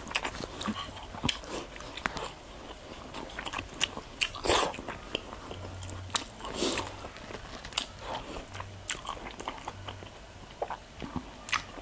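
Crunching and chewing of crispy chicharon bulaklak (deep-fried pork intestine) crumbs in the mouth: a string of short, crisp crunches, a few of them louder about four and a half and seven seconds in.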